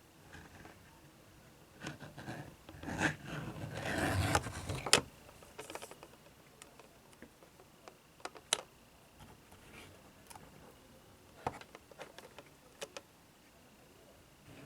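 Handling noises: scrapes, rustles and a series of sharp clicks, loudest about three to five seconds in.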